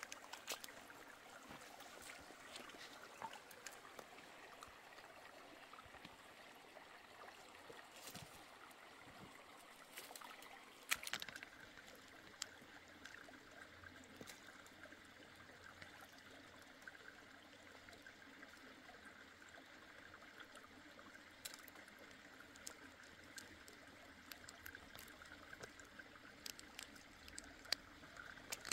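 Faint, steady trickle of running water, with scattered soft clicks and one sharper knock about eleven seconds in.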